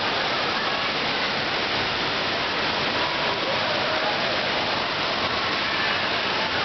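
Steady rush of water pouring and splashing from an indoor waterpark's water-play structure, with faint indistinct voices under it.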